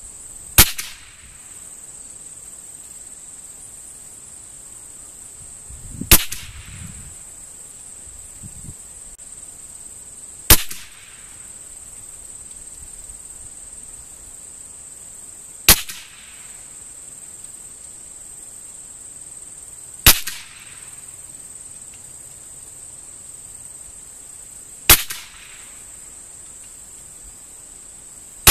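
.22 rimfire rifle firing six single shots, one every four to five seconds, each a sharp crack with a short echo.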